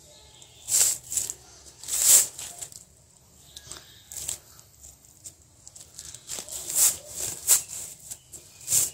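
Nylon pantyhose and cotton gloves rustling against a pineapple's rind as the torn hose is handled, in a string of short swishes that come closer together near the end.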